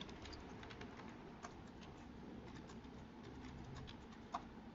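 Faint, scattered clicks of computer keyboard keys being typed, with one slightly louder keystroke about four seconds in, over a low background hiss.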